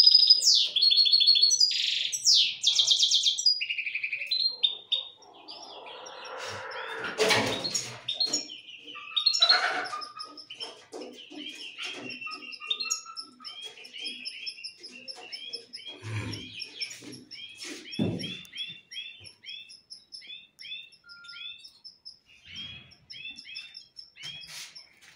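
Caged finches, among them European goldfinches, singing and chirping. Loud whistled, gliding song in the first few seconds gives way to quick, repeated twittering chirps. A few soft knocks and rustles come through in the middle.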